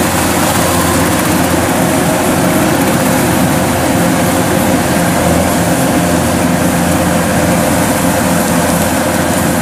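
Kubota rice combine harvesters running steadily under load as they cut and thresh rice: a loud, even engine-and-machinery drone.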